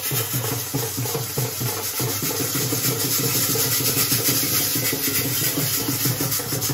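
Music with a quick, steady drumbeat over street noise.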